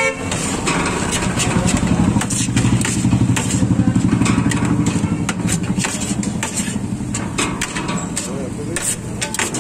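Knife and ladle clicking and scraping on a steel tray as shawarma chicken is chopped off the vertical spit, over a motorcycle engine running, loudest around the middle.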